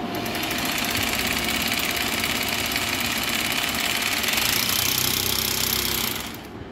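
Electric hammer drill boring into a wall, running steadily at full speed with a fast rattle, then stopping just before the end.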